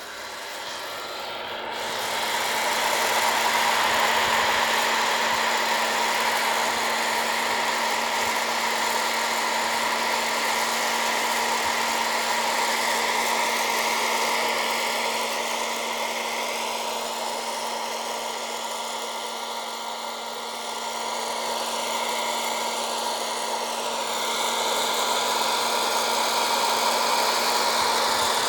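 Hot-air popcorn popper used as a coffee roaster, its fan motor coming up to speed in the first two seconds or so, then running steadily: a rush of hot air over a steady hum as it heats and circulates a charge of green coffee beans early in the roast.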